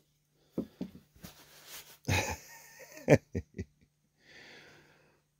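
Scattered clicks and knocks of small metal chainsaw parts being handled on a workbench, the sharpest about three seconds in, with a short breathy sound about two seconds in.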